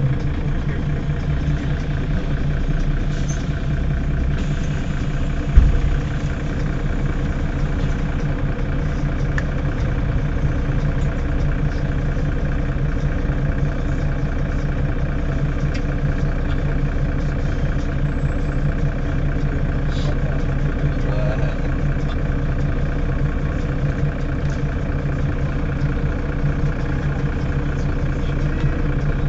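Mercedes-Benz Citaro city bus engine idling steadily while the bus stands at a stop. A single loud thump about five and a half seconds in.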